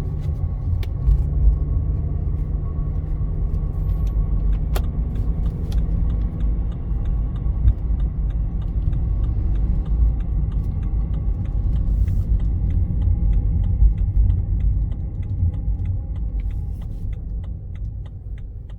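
BMW E90 320i driving, heard from inside the car: a steady rumble of road and engine noise with scattered light clicks and rattles.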